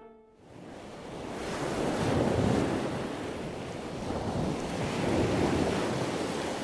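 Ocean surf washing in, a steady rush of waves that builds from quiet and swells twice, a few seconds apart.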